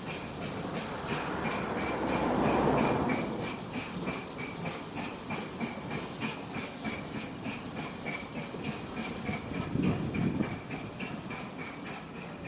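Steam train running on the rails: a fast, even ticking about four times a second over a steady hiss and rumble, swelling louder about two seconds in and again about ten seconds in.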